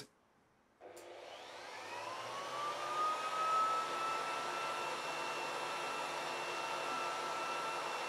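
Electric leaf blower set to power level 1 starting up about a second in: its motor whine rises in pitch over about two seconds, then it runs steadily with a rush of air.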